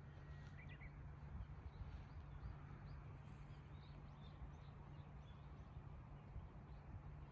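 Faint, scattered bird chirps and tweets over a low, steady outdoor hum.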